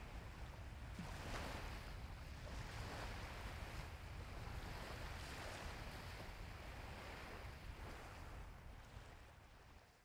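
Faint shoreline ambience of wind and small waves: a steady hiss with a low rumble, fading out near the end.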